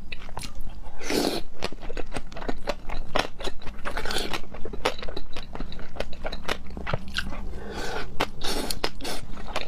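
A person eating seafood close to the microphone: chewing and biting with many quick, wet, crunchy clicks.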